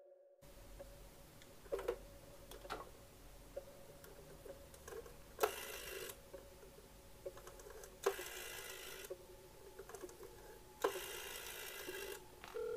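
Rotary-dial telephone being dialled over a steady dial tone. The dial is wound and let go three times, each return a short whirring rattle of about a second, with small clicks in between.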